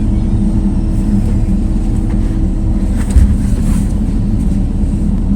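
A motor running with a steady low drone, and a single knock about three seconds in.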